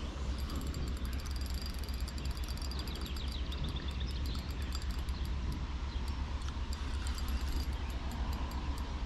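Steady low wind rumble on the microphone, with faint high chirping about three seconds in.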